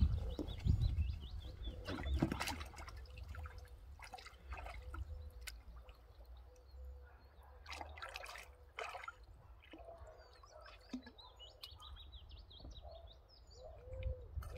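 Water sloshing and splashing in a small lined garden pool as an otter cub swims laps through it, with the biggest splashes about 2 s in and again around 8–9 s in. Small birds chirp in the background.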